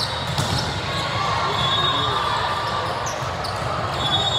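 Indoor volleyball rally: sharp slaps of the ball being hit near the start, and sneakers squeaking on the court twice, over spectators' chatter in a large gym hall.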